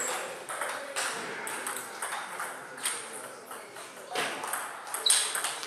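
Table tennis rally: the sharp pock of the ball struck back and forth off the players' bats and the table, about once a second.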